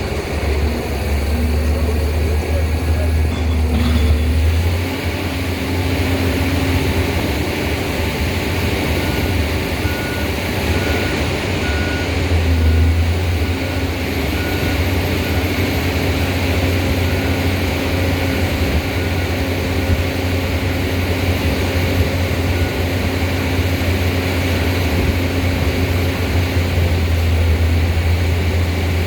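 Steady, loud machinery drone with a deep hum and a hiss. A short high beep repeats a little under twice a second from about nine seconds in, fading out about twenty-two seconds in.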